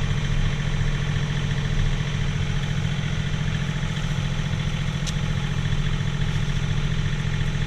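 John Deere 3039R compact tractor's three-cylinder diesel engine running steadily.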